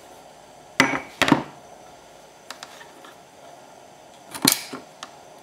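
An old steel hammer head knocking against the workbench as it is handled and set down: two sharp knocks about a second in, and another knock near the end.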